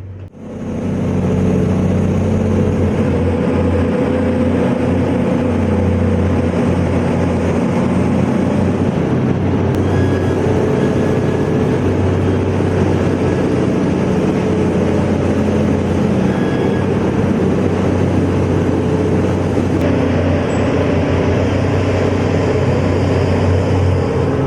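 Heavy diesel engine of an excavator running steadily, a loud constant low hum that starts abruptly and holds without change.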